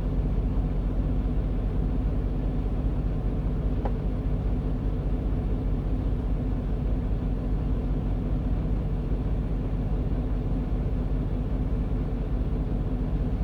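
Steady low drone of a truck idling, heard from inside the cab, with one faint click about four seconds in.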